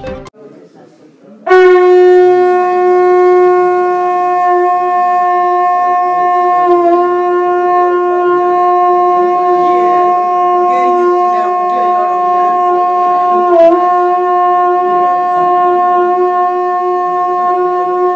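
Conch shell blown in one long, steady, loud note that starts about a second and a half in and wavers briefly twice along the way.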